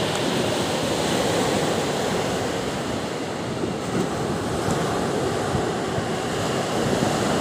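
Small surf waves washing up onto a sandy beach and running back, a steady rushing wash of water.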